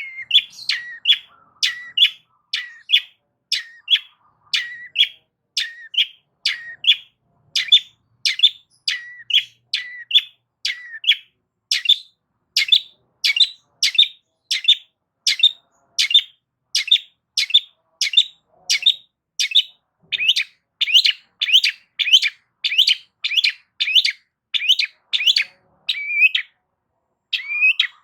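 Long-tailed shrike (cendet) giving a long run of short, harsh calls, about three every two seconds, with a brief pause near the end.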